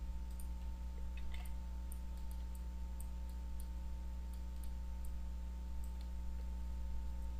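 Scattered faint computer mouse clicks over a steady low electrical hum.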